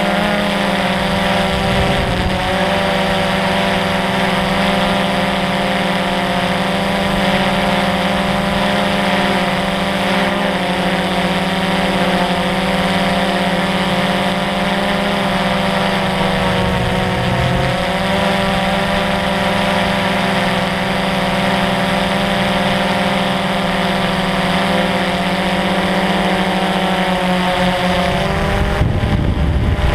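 DJI Phantom quadcopter's electric motors and propellers whining steadily in flight, heard close up from the camera mounted on the drone; several pitches drift slightly up and down over a constant low hum.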